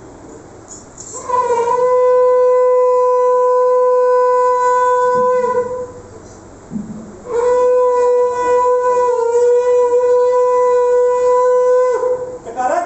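Conch shell (shankh) blown in two long, steady blasts of about four seconds each, with a short break between them.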